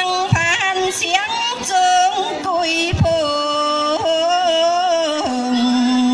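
A woman singing into a handheld microphone over backing music, holding long notes with slides between them. A steady low note joins the music about five seconds in.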